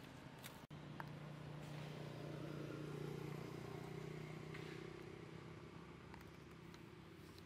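Low, steady hum of a distant engine, swelling a couple of seconds in and then slowly fading, with a few faint ticks over it.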